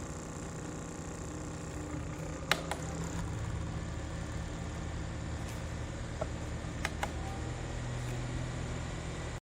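Small battery-powered USB desk fan running with a steady motor hum and whir. There are two pairs of sharp clicks, one about two and a half seconds in and one about seven seconds in.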